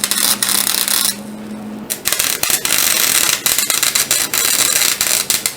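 Electric welding arc crackling as the guard is welded, in two runs with a short lull between them about 1 to 2 seconds in.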